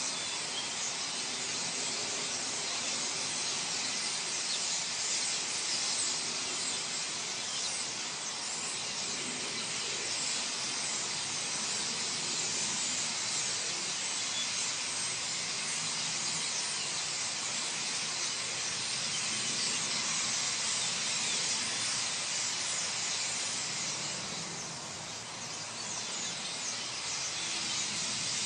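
Massed chattering of a large flock of common starlings gathering to roost: a dense, steady high-pitched hiss of countless calls, easing off briefly a few seconds before the end.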